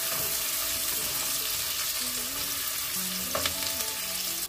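Sliced onions sizzling and frying in hot oil in a pot while being stirred with a wooden spatula. There are a couple of light knocks about three and a half seconds in.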